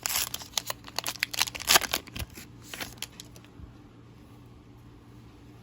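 A baseball card pack's wrapper being torn open and crinkled, with the cards handled: a quick run of crackly rustles that stops about three and a half seconds in, leaving a low steady hum.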